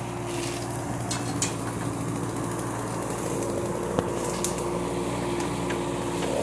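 Kubota K008 mini excavator's three-cylinder diesel running steadily while the arm pulls a bush out of the ground, with a few sharp snaps at about one and a half, four and four and a half seconds in.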